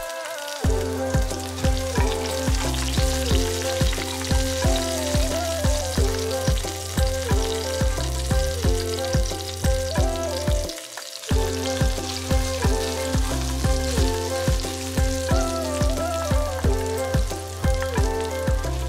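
Oil sizzling steadily as chopped chilli and spring onion fry in a stainless steel pot, under background music with a steady beat.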